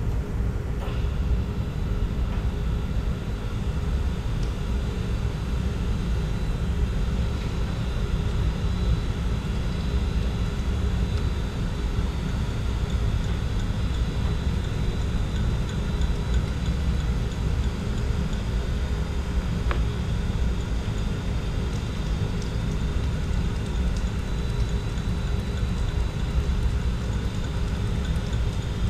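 Boyar Schultz H612 Challenger manual surface grinder running steadily: a low rumble with a constant hum from its 1 hp three-phase spindle motor. The table is worked by hand, with a few faint clicks.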